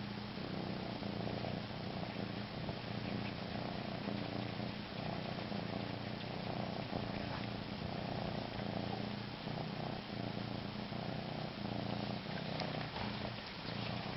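Domestic cat purring steadily, a low even purr that pulses gently, while it suckles on its own body.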